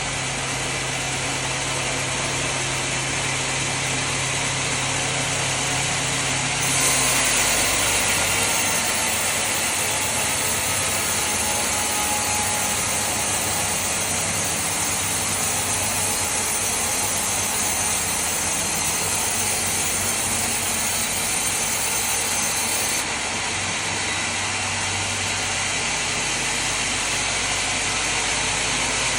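Sawmill machinery running with a steady hum. About seven seconds in, a louder, brighter hiss joins it, lasting about sixteen seconds before it drops away.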